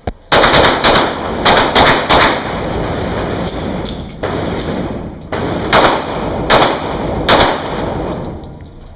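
Rapid handgun fire from an IDPA course of fire: a quick string of pistol shots in the first two and a half seconds, then after a pause three more shots spaced a little under a second apart. The shots echo off the concrete walls of the indoor range.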